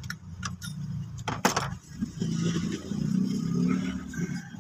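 Several sharp metallic clicks in the first second and a half as pliers strip and cut a sensor wire for splicing, the loudest about a second and a half in. From about two seconds in, a vehicle engine hums low in the background.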